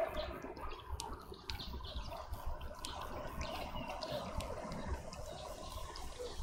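Outdoor garden ambience: faint short bird chirps and scattered sharp ticks over a steady low rumble and hiss.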